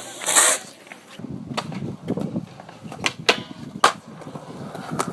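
Skateboard wheels rolling on concrete, a steady low rumble, with several sharp clacks of the board spread through it.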